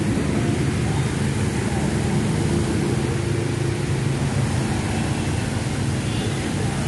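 Steady low rumble of vehicle engines running, with a faint hum.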